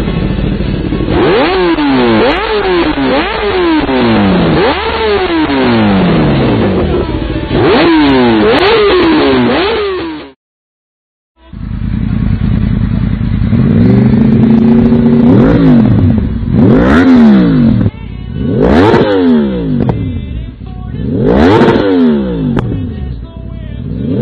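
2013 Kawasaki Ninja ZX-10R's inline-four through an M4 slip-on exhaust, revved in quick blips, its pitch rising and falling over and over before cutting off about ten seconds in. After a short gap, a second superbike with an Akrapovič exhaust is revved in separate pulls about every two seconds, each climbing sharply and dropping back.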